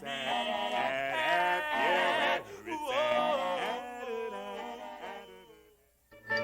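Singing voices hold and bend notes without clear words in two phrases, the close of a song, fading away near the end.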